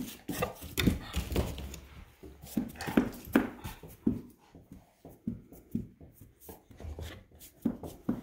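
Two dogs play-wrestling: a string of short, irregular huffs and pants, about two a second, louder in the first few seconds.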